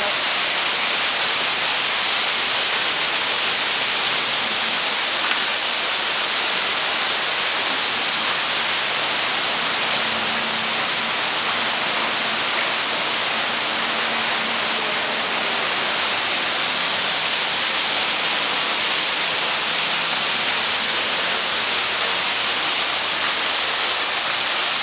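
A steady, even hiss with no breaks or distinct events, strongest in the high range.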